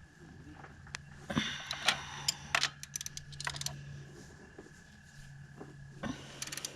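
Socket ratchet clicking and metal tools clinking in short irregular runs while the thermostat housing bolts are tightened down.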